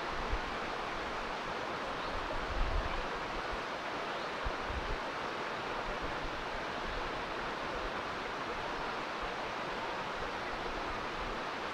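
Steady rush of flowing stream water, with a few brief low thumps in the first half.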